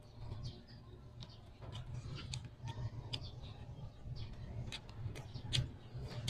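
Eating mouth sounds close to the microphone: irregular wet clicks and smacks of chewing on rice and stir-fried snow peas with chicken, over a low steady hum.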